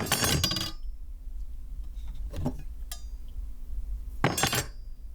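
A metal knife dropped onto a hard surface for a Foley recording, clattering and ringing. There is a sharp clatter right at the start, a lighter knock a couple of seconds in, and a second clattering drop about four seconds in.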